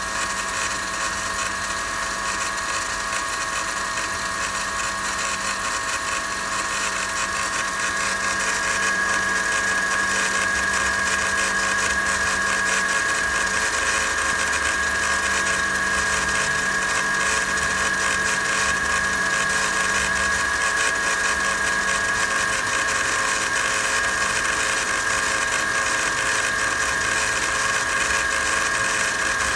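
Mercedes-Benz M273 V8 idling after a cold start, with a constant high-pitched chattering from the front belt drive that grows louder about eight seconds in. The chatter came from worn belt idler pulleys: replacing both made it disappear.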